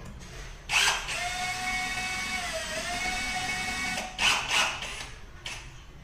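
Cordless drill-driver running for about three seconds, a steady whine that dips briefly in pitch midway as it takes load, driving a screw at a concealed shower mixer's cover plate. Loud knocks come just before it starts and again just after it stops.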